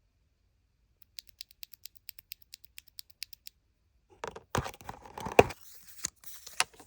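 A Kailh Polia 60 g tactile keyboard switch pressed rapidly and evenly, about five clicks a second, for a couple of seconds. Then comes louder, irregular clatter and a few heavy knocks.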